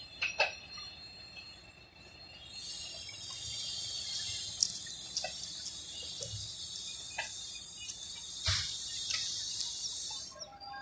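Insects chirring in a steady, high-pitched drone that starts about two and a half seconds in and stops near the end, with a few sharp clicks over it.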